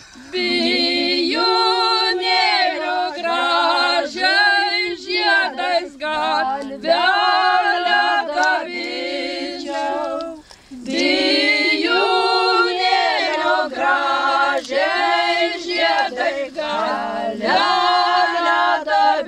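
A small group of women singing a Lithuanian song together without accompaniment, with long held notes and a brief pause for breath about ten seconds in.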